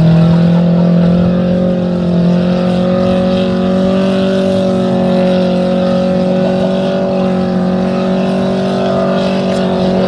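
Small rally hatchback's engine held at high, steady revs, its driver trying to drive the car out of deep mud where it is stuck.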